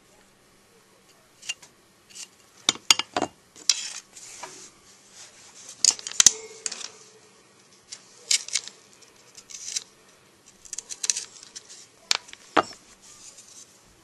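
Hand-drill spindle spun between the palms against a goldenrod gall hearth, giving short irregular bursts of scraping and sharp clicks with brief pauses between them.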